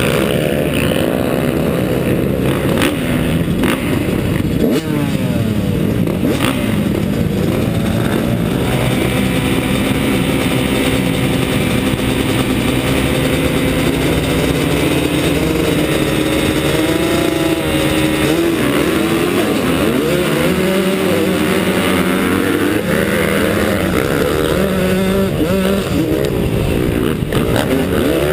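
A field of motocross bikes revving at the start gate, with the rider's own Yamaha YZ125 two-stroke loud and close, then accelerating hard off the start and racing in a pack.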